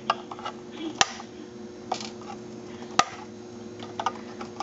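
Diagonal cutters snipping off the long soldered leads of diodes on a circuit board: sharp single snaps, the loudest about one and three seconds in, with lighter clicks between, over a faint steady hum.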